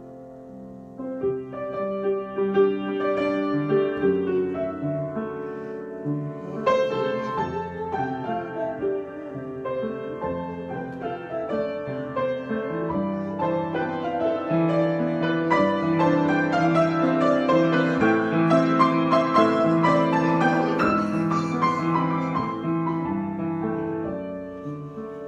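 Solo piano improvisation: held low chords under flowing runs of notes, turning busier from about seven seconds in and softening near the end.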